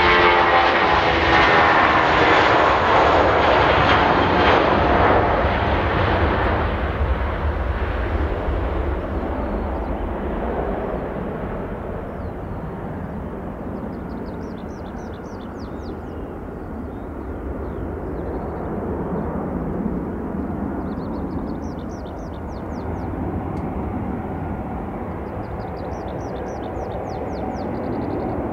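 Airbus A320 jet engines at takeoff power: a loud roar whose whining engine tones slide down in pitch as the airliner passes, then fading to a distant rumble as it climbs away. In the second half a songbird sings three short trilled phrases over the fading engine noise.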